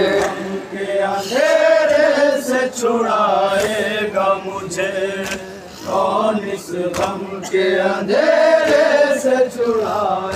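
A group of men chanting an Urdu noha (mourning lament) in long, wavering held notes through microphones. Sharp slaps about every second or so keep time, the sound of matam, hands striking the chest.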